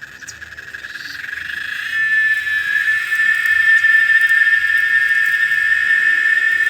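Cicada singing: a rapidly pulsing buzz that swells over the first two seconds, then settles into a loud, steady shrill whine.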